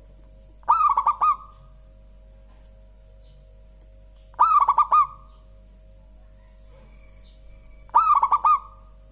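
Zebra dove (perkutut) cooing: three short phrases of several quick, soft notes, about three and a half seconds apart.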